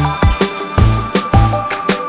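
Upbeat background music with a steady beat and a bouncy bass line.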